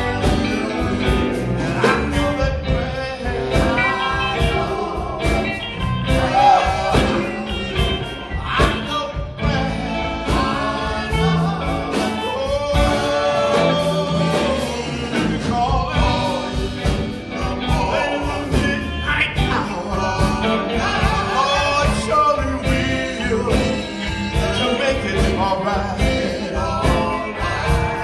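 Live gospel group performing: voices singing over a drum kit and electric guitars, with a steady beat.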